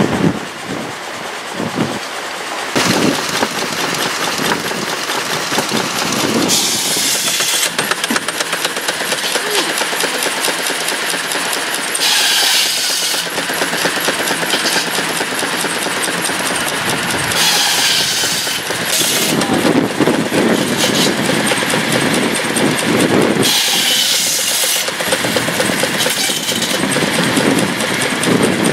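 Steam-powered machinery running steadily with a fast, even clatter, broken by a harsh hissing burst about every five seconds.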